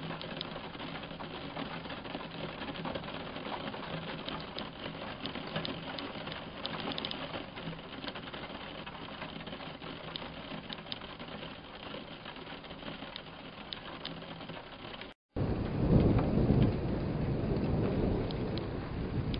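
Steady moderate rain with many single drops ticking on a nearby surface. After a cut about fifteen seconds in, a loud low rumble of thunder.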